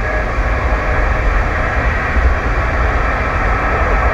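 CB radio receiver hissing with static, its squelch open between transmissions, over a steady low vehicle rumble. The static stays flat and even throughout.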